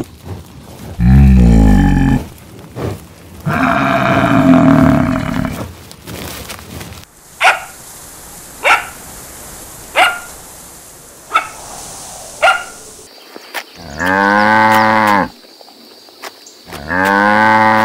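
Water buffalo lowing twice in long, deep calls, then a small dog giving five sharp barks about a second apart, then a cow mooing twice.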